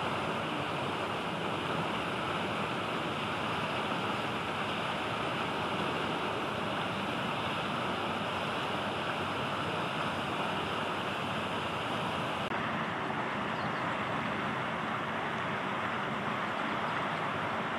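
Steady rushing outdoor background noise with no distinct events. Its tone shifts slightly about twelve seconds in.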